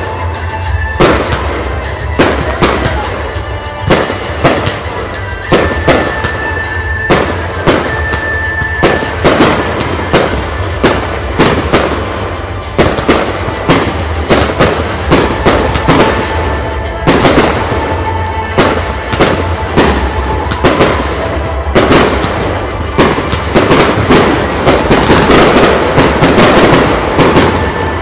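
Aerial firework shells bursting in a long string of sharp bangs, coming faster and denser in the last few seconds.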